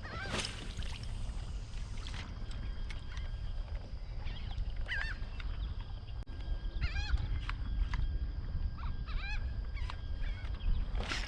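A flock of birds calling over the water: scattered short calls, some in quick runs, rising and falling in pitch. A steady low rumble lies underneath.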